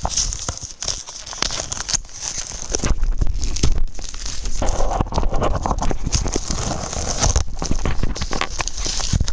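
Packaging being torn open by hand: a continuous crackle and crinkle with many quick snaps as the material rips and is pulled apart.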